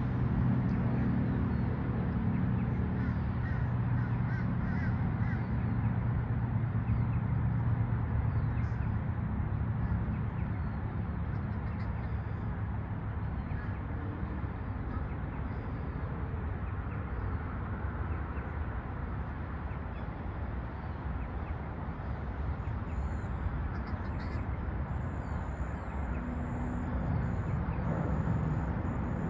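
Outdoor ambience: birds calling over a steady low hum and hiss.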